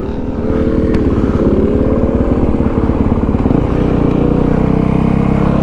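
Motorcycle engine revving and accelerating hard, its pitch swinging up and down over the first two seconds, then settling into a heavy, steady low drone.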